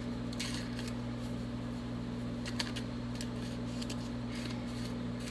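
Garlic powder being shaken out of a spice jar through its sifter lid: several short bursts of shaking at irregular intervals, over a steady low hum.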